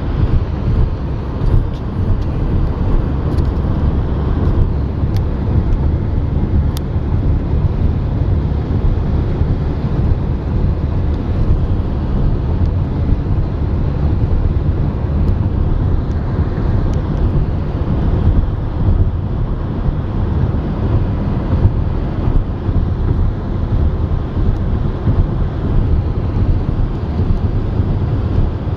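Car driving, heard from inside the cabin: a steady, loud low rumble of engine and road noise.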